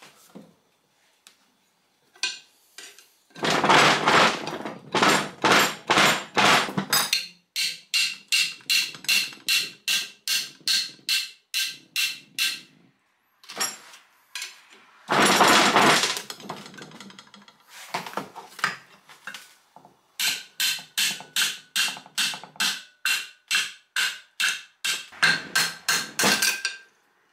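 Steel hammer repeatedly striking locking pliers clamped on a worn steel pin in a flywheel, working the pin loose. The blows come about two to three a second with a ringing metallic tone, with a heavier, rapid flurry of blows about three seconds in and again about fifteen seconds in.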